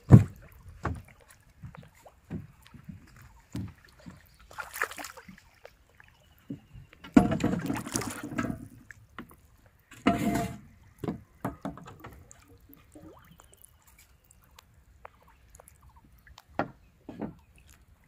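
Knocks and thumps on the planks of a small wooden boat as someone steps about barefoot and sets down and handles fishing gear. Two longer, louder stretches of scraping and rustling come about seven and ten seconds in.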